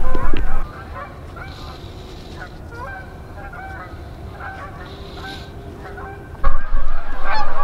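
Geese honking over and over in a long series of calls. Wind rumbles loudly on the microphone for about the first half second and again from about six and a half seconds in.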